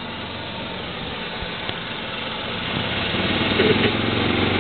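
Golf cart ploughing through deep floodwater: a rush of splashing water over a steady motor hum, growing louder about three seconds in.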